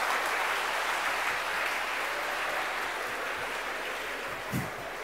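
Large audience laughing and applauding, the sound dying away gradually. A soft low thump comes near the end.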